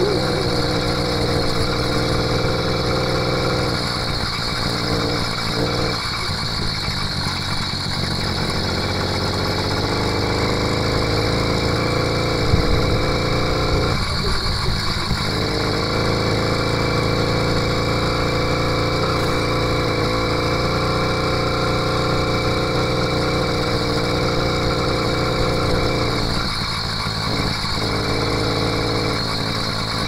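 80cc two-stroke motorized-bicycle engine kit running while riding, its note steady with short breaks three times as the throttle changes.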